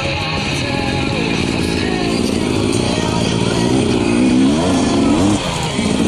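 KTM 300 XC's single-cylinder two-stroke engine being ridden, its pitch rising and falling as the throttle is worked, with sharper revs about four seconds in.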